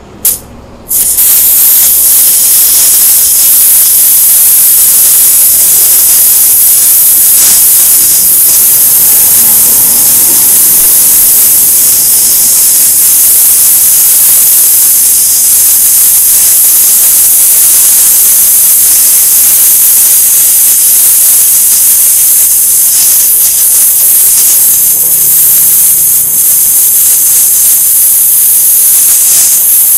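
High-pressure jet from a DEKTON DK-HPW3500W industrial pressure washer blasting against a concrete block to strip off hardened cement: two short spurts, then about a second in a loud, steady hiss that holds unbroken.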